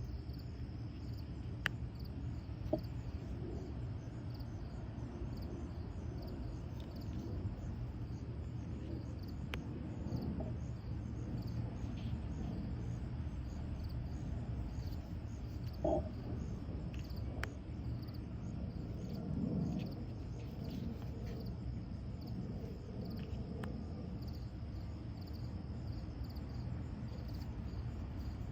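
Steady low background hum with a few light clicks and taps of oracle cards being handled.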